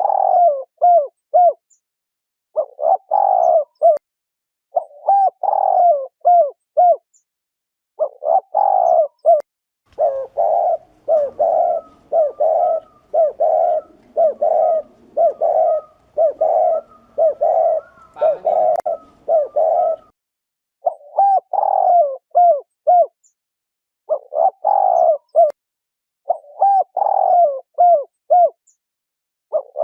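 Spotted dove cooing: the 'gù' coo of a male, a call that excites rival males and is used as a lure. It comes in repeated phrases of several coos with short pauses between them, and runs without a break for several seconds in the middle.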